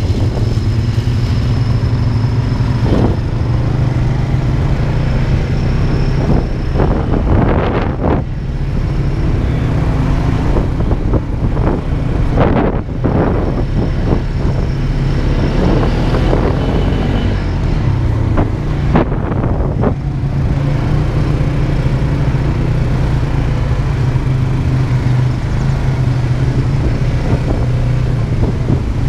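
ATV engine running steadily at trail-riding speed, its pitch dipping and rising now and then.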